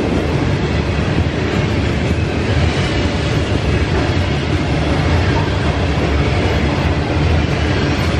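Freight train of loaded covered hopper cars rolling past, a steady loud rumble of steel wheels on rail.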